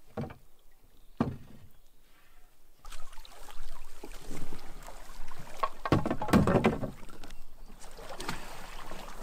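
Small boat on the water: water noise and irregular knocks against the hull, quiet at first and loudest about six seconds in.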